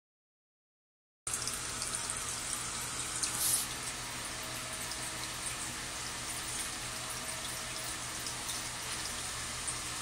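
Tetra Waterfall Globe aquarium's filter bubbling and trickling steadily, with many tiny bubble pops and a brief louder rush of water about three and a half seconds in. The sound starts about a second in.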